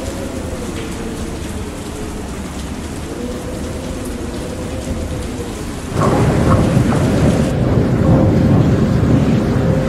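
Storm sound effect: wind howling over rain, with a wavering whistle-like tone. About six seconds in, it turns abruptly louder and deeper as thunder and heavy rain come in.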